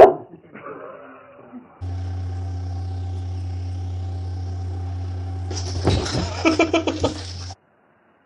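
A short loud burst at the very start. Then a steady electric motor hum, like a jetted bathtub's pump running under bubble foam, overlaid about four seconds in by a rapid flurry of splashes and sharp knocks that stop abruptly with the hum.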